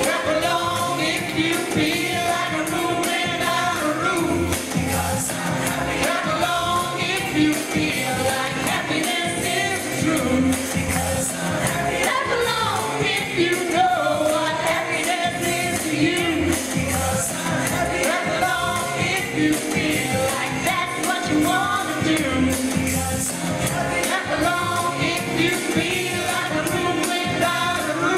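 Pop song sung live by several voices together into microphones over backing music with a steady beat.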